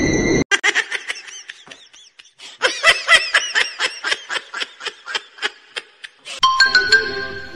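A person laughing in a long run of high-pitched giggles, about three a second, loudest around the middle. Music starts near the end.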